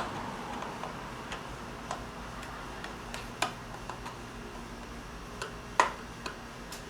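Irregular light clicks and taps, with one sharper click near the end, from parts and hand tools being handled while fitting parts back onto a lawnmower engine, over a faint steady hum.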